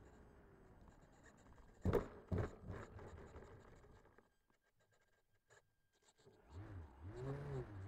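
RC Corsair model plane rolling with a low rumble, then a few hard knocks about two seconds in as its landing gear bumps over rough ground. Near the end its motor and propeller start up again, with a low pitch that wavers up and down.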